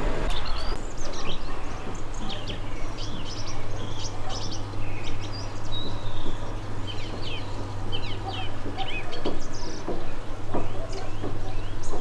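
Small songbirds chirping, many short high chirps one after another, over a steady low hum.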